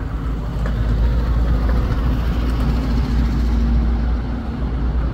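Motor vehicle engine running steadily, a continuous low rumble with a faint steady hum.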